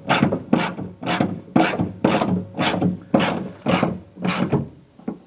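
Hand ratchet tightening a door handle nut, its pawl rasping on each back-swing, about two strokes a second, nine or so in all, stopping shortly before the end.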